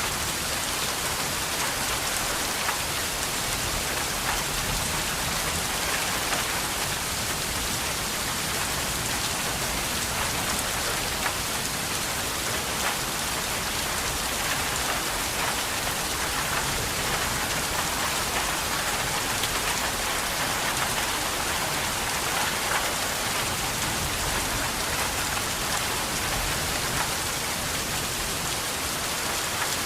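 Steady rain falling on a surface, a dense even hiss speckled with the ticks of individual drops.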